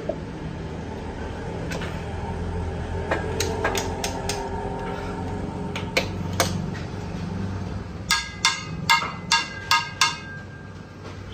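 Metal spatula striking a hot cooking pan: scattered clinks, then a quick run of about seven ringing metallic strikes near the end, roughly three a second. A steady low hum runs underneath.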